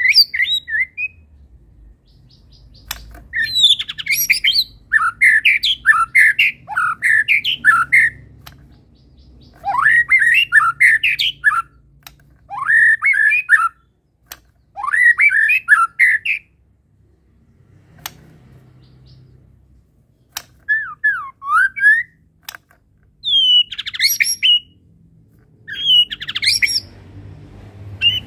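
White-rumped shama (murai batu) singing in about eight separate bursts of fast, varied phrases. The bursts mix sweeping whistles and chattering notes, with sharp clicks in between and short pauses between phrases.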